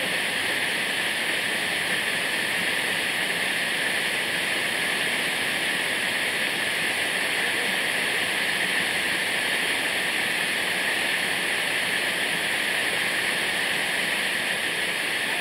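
Waterfall: a steady, unbroken rush of falling water, bright and hiss-like.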